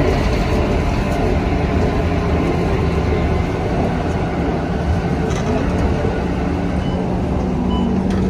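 A city bus heard from inside while it drives: engine running and tyre noise on a wet road, a steady dense rumble. A steady low hum comes up near the end.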